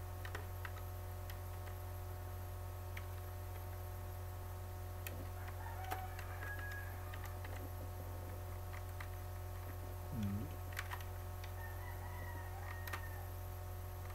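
Sparse computer keyboard keystrokes and clicks over a steady low electrical hum, with a brief low pitched sound about ten seconds in.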